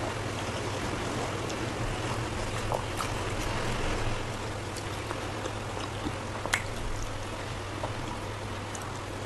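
Steady hiss with a low hum underneath, broken by a few faint sharp clicks, the clearest about three seconds in and again past six seconds.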